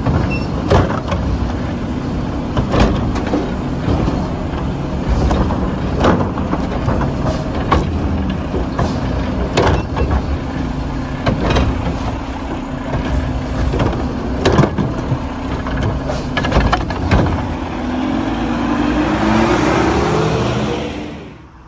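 Front-loading garbage truck fitted with a Curotto Can, its diesel engine running loudly under repeated sharp bangs and clanks from the collection equipment. Near the end the engine revs up with a rising pitch.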